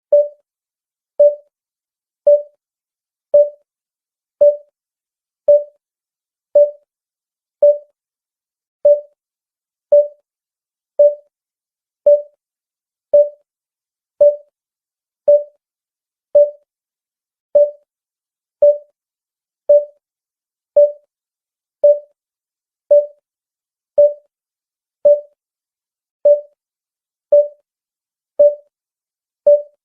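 Electronic beep sound effect: a short, single-pitched, mid-range beep repeating steadily about once a second, each beep fading quickly.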